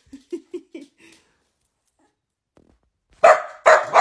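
Dachshund barking: a few short, soft yips in the first second, a pause, then two sharp barks near the end.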